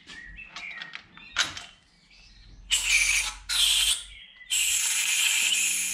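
Compressed-air blow gun blowing out bolt holes: three hissing blasts, two short ones then one longer one of about a second and a half, after a few light clicks and knocks.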